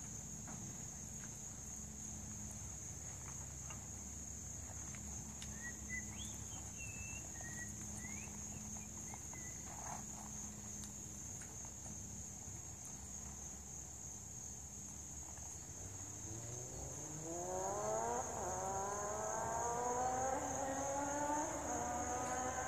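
A steady high-pitched insect chorus (crickets) over a low hum. About seventeen seconds in, an engine comes in, rises in pitch as it speeds up, then holds steady and becomes the loudest sound.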